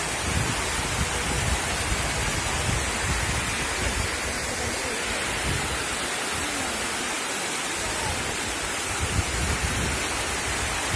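Water pouring over a curved reservoir spillway and churning in the pool below: a steady, even rushing noise.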